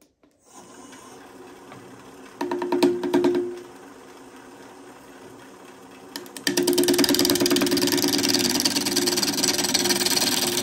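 Wood lathe spinning up with a steady hum, then a tool working against the spinning live edge maple bowl. It comes in a brief loud spell about two seconds in and a longer loud spell from about halfway on, each with a fast rhythmic pulsing.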